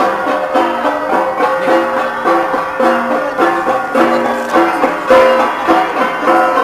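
Gangsa ensemble of flat bronze gongs struck in a fast, steady, interlocking rhythm, with ringing metallic tones repeating in short patterns.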